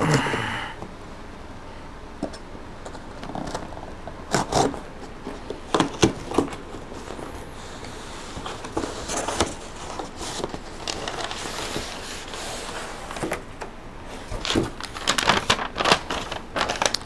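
A cardboard shipping box being unpacked by hand: a knife scrapes through the tape right at the start, then cardboard flaps rub and crackle, with a few sharp knocks as the inner box is pulled out. Paper rustles near the end.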